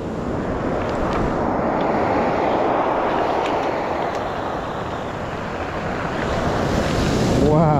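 Surf on a pebble beach mixed with wind on the microphone: a steady rush that swells in the middle and again near the end. A voice briefly starts right at the end.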